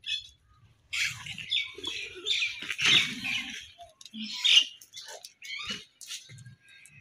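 High-pitched animal squeaks and chirps, a rapid irregular string of short cries.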